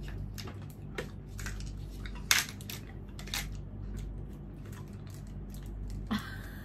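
Eating noises: a string of irregular small clicks and clinks, utensils against a bowl and chewing, the loudest a little over two seconds in.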